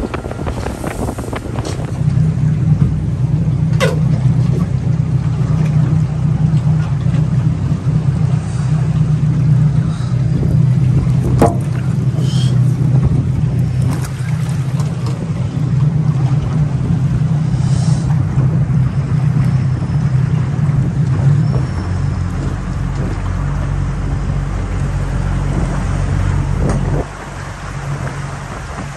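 A boat's motor machinery running with a steady low drone, which drops sharply in level near the end. A few brief sharp sounds cut through it.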